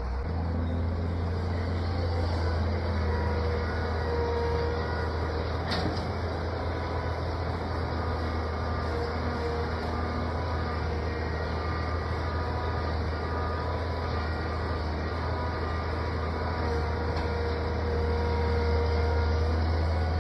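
Excavator's diesel engine running steadily under load, a deep drone with faint higher whining tones that come and go, and a single sharp click about six seconds in.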